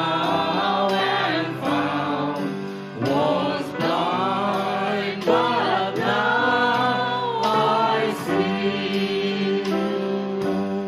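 Congregational worship song: a group singing over piano, with light drum strokes.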